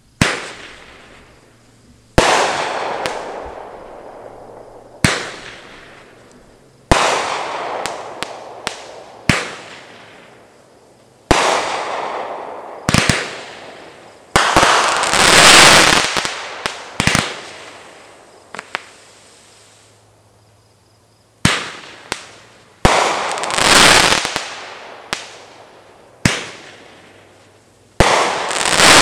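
A 500-gram consumer fireworks cake (Great Grizzly Bravo) firing: sharp bangs every couple of seconds, each dying away in a long echoing tail. About halfway through comes a longer rolling stretch of bursts.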